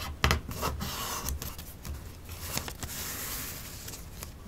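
Sheet of paper being folded and creased by hand: crackling and rustling of the paper, with a sharp crackle near the start and a longer scrape of fingers run along a crease in the middle.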